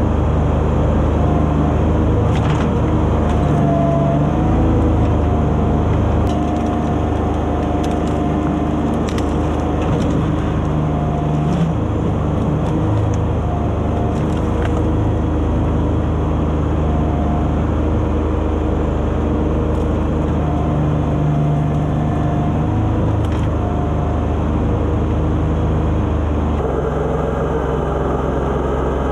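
John Deere 2210 sub-compact tractor's three-cylinder diesel engine running steadily under load, with a whine that rises and drops away as the loader hydraulics push and lift a fallen apple tree trunk. Scattered sharp cracks of wood and branches break through in the first half, and the engine note shifts near the end.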